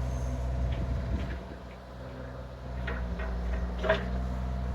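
Bobcat compact excavator's diesel engine running steadily, easing down briefly about a second and a half in, with a few knocks and clatters and a sharp knock near the end.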